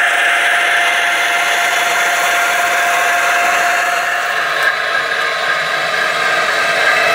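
Piko H0 model Ludmilla diesel locomotive running: a steady whir with one held tone over it.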